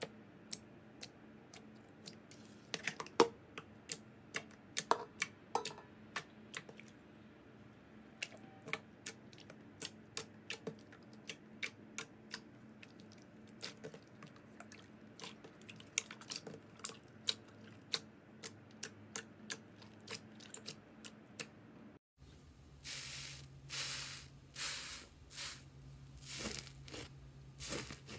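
Glossy slime being poked and stretched, giving many sharp little clicks and pops. About 22 seconds in, a slime covered in a dry, glitter-flecked crust is pressed by hand and crunches and crackles in longer, rougher bursts.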